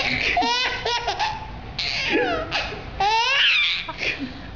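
Baby laughing in several high-pitched belly-laugh bursts, each falling in pitch, tailing off near the end.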